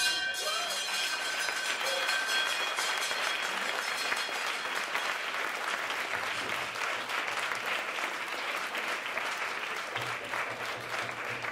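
Theatre audience applauding with steady, dense clapping, while a held note from the closing music fades out in the first two seconds.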